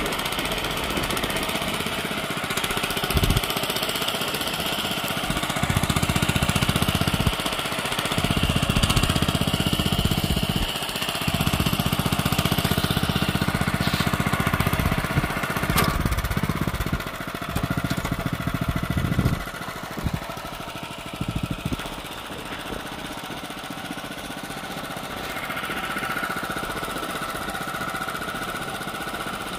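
Honda FJ500 DLX tiller's small single-cylinder four-stroke engine running steadily as its spring tines dig through the soil. It is louder and heavier through the middle stretch and lighter near the end.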